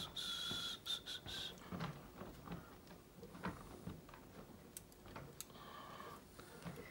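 Faint, scattered light clicks and taps of small model parts being handled and fitted onto their pins. A thin, steady high tone sounds through the first second and a half and more weakly near the end.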